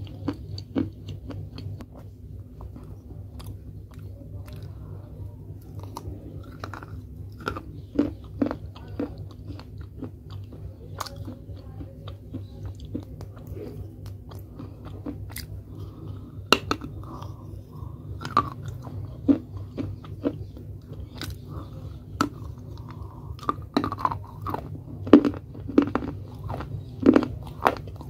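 A person biting and chewing pieces of baked clay pot close to the microphone: sharp, crisp crunches between slower grinding chews. The crunches come thicker and louder in the second half, over a steady low hum.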